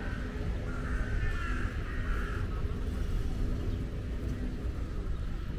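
A bird calling several times in short, harsh calls in the first half, over a steady low rumble.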